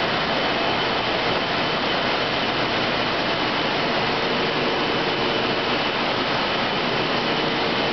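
Steady noise of industrial process machinery running in a plant building: pumps, motors and ventilation, with a faint steady high whine over it.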